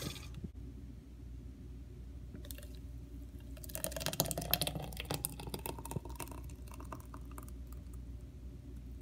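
Thick berry smoothie pouring from a blender jar into a plastic cup, with wet plopping and gurgling. From about three seconds in the pitch rises as the cup fills, and it tails off after about six seconds.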